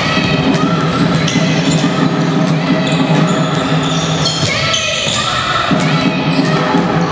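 Basketball game sounds in a large gym: a ball bouncing on the hardwood court, with spectators' voices.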